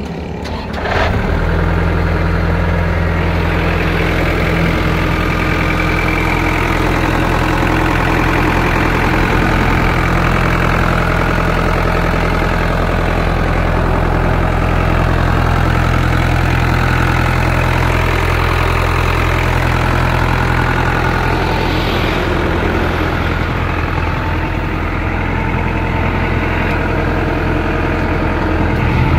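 Iseki TR63 tractor's diesel engine idling steadily.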